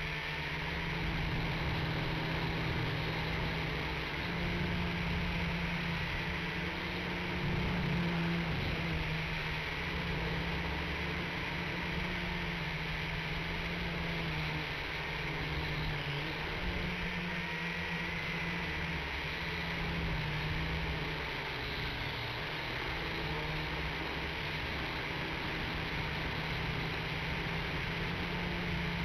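WLtoys V959 quadcopter's four small electric motors and propellers whirring steadily, picked up by its onboard camera, the pitch wavering a little as the throttle changes in flight.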